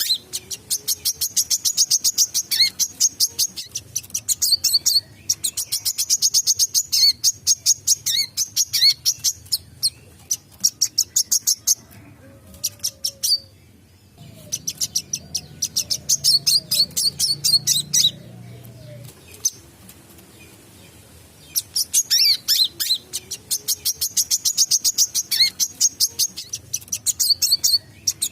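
Sunbird ('wiceh') singing hard in long bouts of rapid, high, sharp chirps, each bout lasting a few seconds and broken by short pauses.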